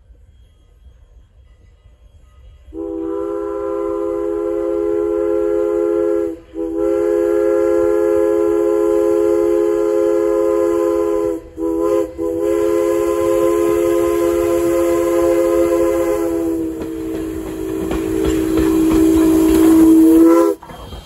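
Steam locomotive chime whistle sounding the grade-crossing signal: two long blasts, a short one, then a final long one, each a steady chord of several notes. Under the last long blast the rumble of the approaching locomotive grows louder, and the whistle cuts off sharply.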